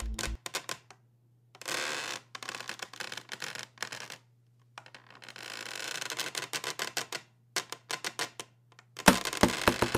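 Small metal anklet bells jingling in irregular bursts of rapid clicks, separated by short pauses, over a faint steady low hum, with a louder burst near the end.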